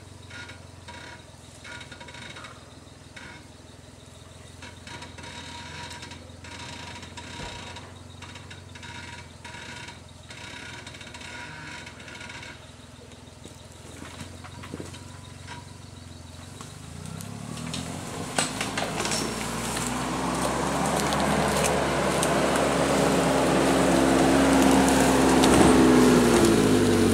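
Suzuki Jimny JA11's small three-cylinder F6A turbo engine pulling quietly at low revs, then revving up hard about two-thirds of the way in, its pitch rising and holding high under load. Scattered knocks sound over it.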